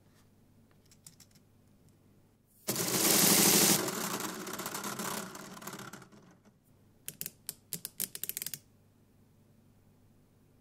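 Lego pneumatic engine running on compressed air, a loud rapid mechanical clatter with air hiss that starts about a third of the way in, then dies away. Near the middle it is followed by a quick run of sharp light plastic clicks.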